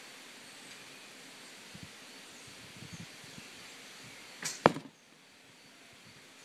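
A longbow shot: the string's release and the arrow's sharp strike on the target in quick succession, about a fifth of a second apart, the strike the loudest sound, a few seconds in.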